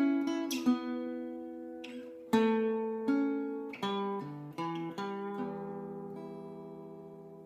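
Solo acoustic guitar picking an introduction: single notes and chords that ring and fade, with a fresh chord struck about two seconds in. The last chord is left ringing and slowly dies away over the final couple of seconds.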